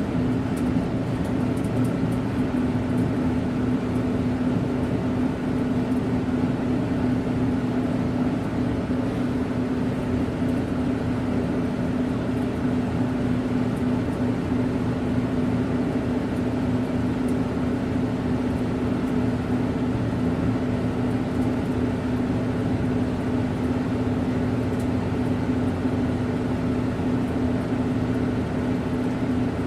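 Factory conveyor machine running steadily, a constant motor hum with a strong low tone and an even mechanical rumble.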